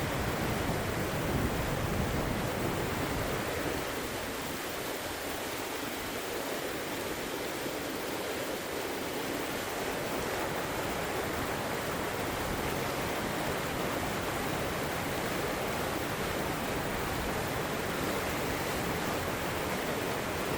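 River water flowing and rushing over rocks, a steady even wash of water noise. A deeper low rumble in the first few seconds drops away, leaving the rush alone.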